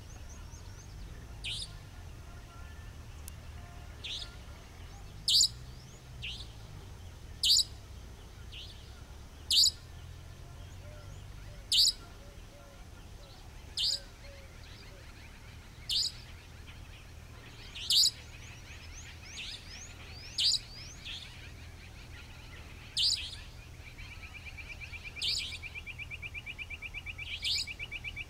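Savanna Nightjar (Caprimulgus affinis) giving its sharp, high 'dheet' call over and over, about once every two seconds, with fainter notes between. A fast, even pulsing sound joins about four seconds before the end.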